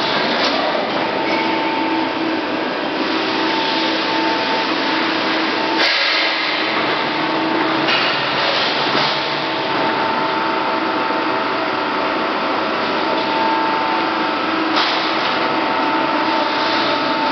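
CNC turret punch press running, punching a metal sheet with rapid repeated strokes over a steady machine hum. There is a louder knock about six seconds in and another near fifteen seconds.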